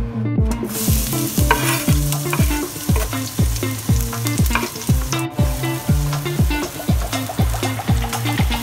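Minced garlic and chopped red chilli sizzling as they drop into hot oil in a nonstick frying pan, then stirred with a wooden spatula. The sizzle starts about half a second in and breaks off briefly about five seconds in. Background music with a steady beat plays underneath.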